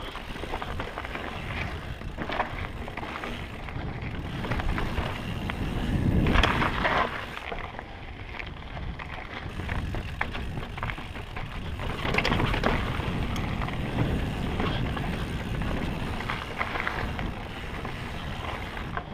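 Mountain bike descending a rocky trail: wind buffeting the microphone over the rumble of tyres on rock and dirt, with scattered knocks and rattles from the bike, swelling louder about six seconds in and again about twelve seconds in.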